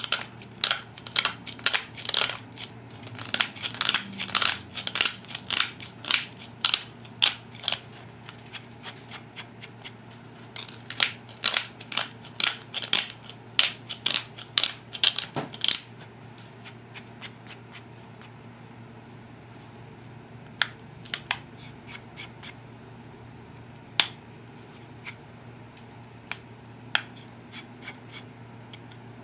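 Copper-tipped pressure flaker shearing the edge of an obsidian biface: a quick run of sharp, crisp clicks, about two or three a second, as small flakes snap off the edge. After about sixteen seconds the clicks thin out to occasional single snaps.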